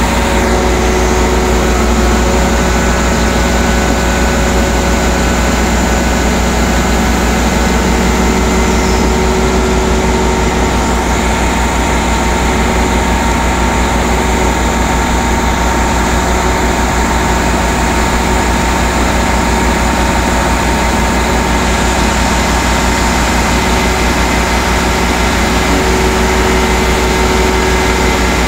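Heavy diesel engine running loudly and steadily at a constant speed, with no change in pitch.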